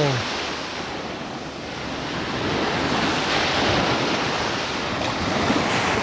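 Surf washing onto a beach, an even rush of noise that builds up again about halfway through, with wind on the microphone.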